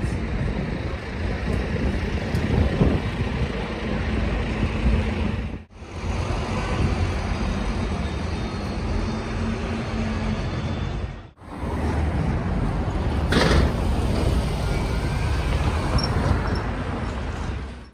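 Double-decker diesel bus engines running as the buses pull away and pass along a busy city street, over steady traffic noise, with a short hiss about thirteen seconds in.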